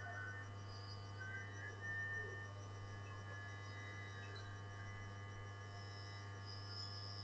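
Low, steady electrical hum with faint thin whining tones above it.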